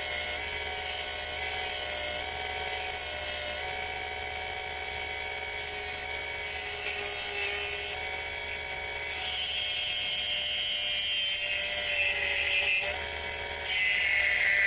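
Harbor Freight mini lathe running steadily with a constant motor whine while a tool cuts decorative grooves into a spinning purpleheart handle blank; the cutting sound shifts and grows scratchier from about nine seconds in.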